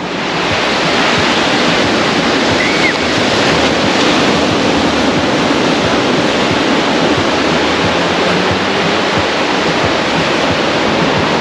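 Ocean surf breaking on the shore: a steady, even rush of waves.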